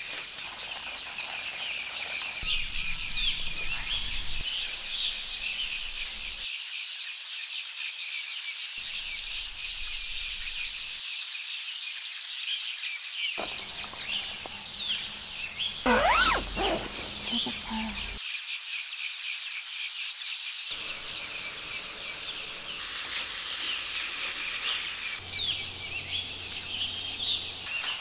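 Forest ambience: many small bird chirps over a steady high insect drone, with one louder sound falling in pitch about sixteen seconds in.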